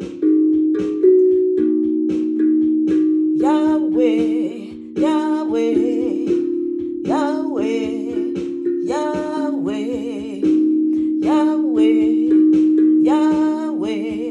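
Feeltone Zenko steel tongue drum struck with soft mallets, its notes ringing on and overlapping in a slow melody. A woman sings over it in held, wavering phrases.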